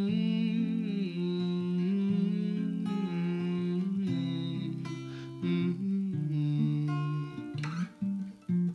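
Acoustic pop song: acoustic guitar accompaniment under a wordless held vocal line. Near the end the guitar plays short chords that stop sharply between strokes.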